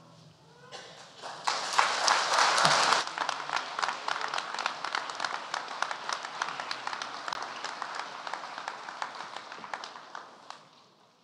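Audience applauding. It swells to its loudest about two seconds in, then settles into scattered claps that thin out and die away near the end.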